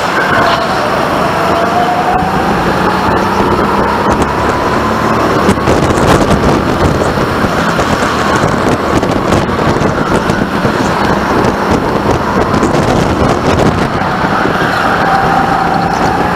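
Go-kart driven at racing speed, heard from onboard: a steady loud running noise with a whine that rises in pitch over the first few seconds and again near the end.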